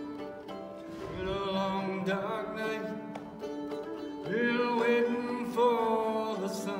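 Mandolin strummed and picked through an instrumental break in a folk song, with a long, wavering melody line over it about a second in and again past four seconds.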